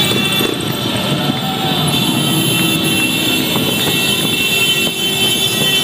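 Many motorcycle engines running together as a large pack rides slowly past, a loud, steady wall of engine noise.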